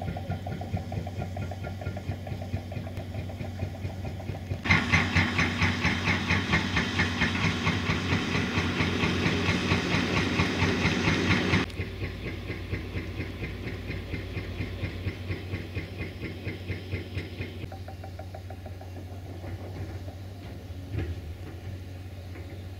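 An engine running with a fast, steady pulsing beat over a low hum. It gets abruptly louder and brighter about five seconds in, then drops back just as abruptly around the middle.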